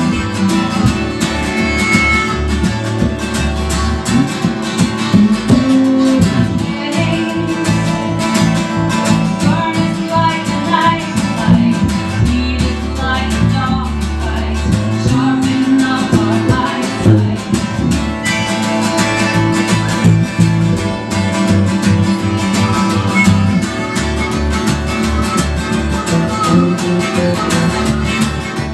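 Live acoustic band music: an acoustic guitar played along with a harmonica, in a country/bluegrass style.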